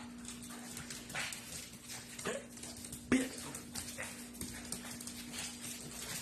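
A pug's claws clicking and scrabbling on a tile floor as it scoots and spins: an irregular run of light ticks and taps, with one sharper knock about three seconds in. A steady low hum runs underneath.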